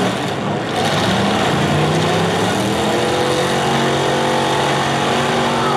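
Demolition derby cars' engines revving hard together over dense engine noise; their pitch climbs and then holds high through the second half.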